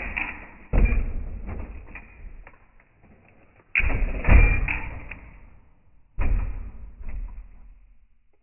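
A '62 hydraulic lowrider hopper slamming down three times, its back bumper banging the pavement at each hop, a couple of seconds apart. Each hit is a heavy bang that dies away over a second or two.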